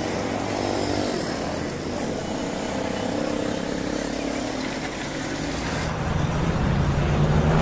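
Road traffic: a vehicle's engine and tyres as it drives past, over steady street noise. Near the end the sound turns duller, with a low steady hum.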